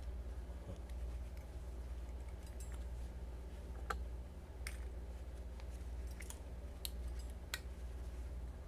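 Steel channel-construction balisong (butterfly knife) being worked by hand: irregular sharp metal clicks and clacks, roughly one a second, as the handles swing and the latch catches. A steady low hum runs underneath.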